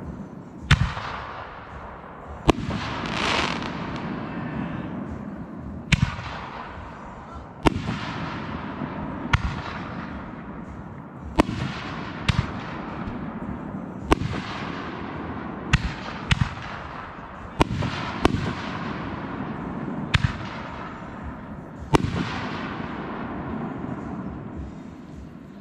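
Aerial fireworks bursting overhead: about fourteen sharp bangs, one every second or two, each followed by an echoing tail, with crackling noise between them.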